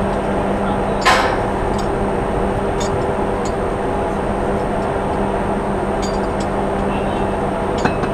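Steady hum of ship's machinery with a constant noise haze, and one sharp knock about a second in, followed by a few faint ticks.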